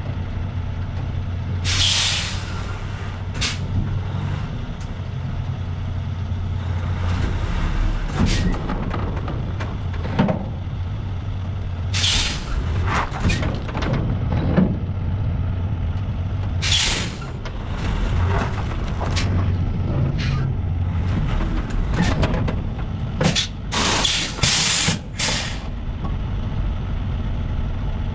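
Semi truck's diesel engine idling steadily, with sharp air-brake hisses released several times and a quick run of them near the end.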